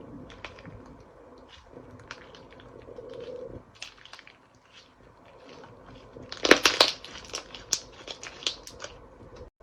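Slime being pressed and worked by hand, giving scattered crisp clicks and crackles, with a louder, denser burst of crackling about six and a half seconds in.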